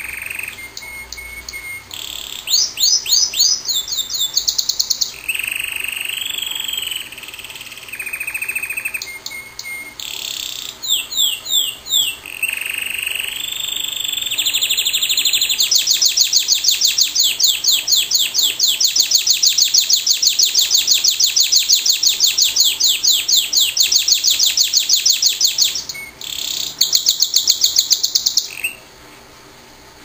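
Domestic canary singing a long, loud song made of phrases of rapidly repeated high notes and trills, including one long fast rolling trill of about ten seconds in the middle. The song stops shortly before the end.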